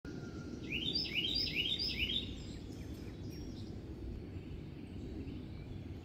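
A songbird singing one short phrase of about four quick rising whistled notes, a little under half a second apart, about a second in, over a steady low background noise of the outdoors.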